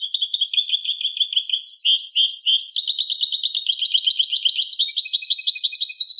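European goldfinch singing its clean song: one long unbroken phrase of rapid twittering notes that tightens into a fast, even trill in its second half.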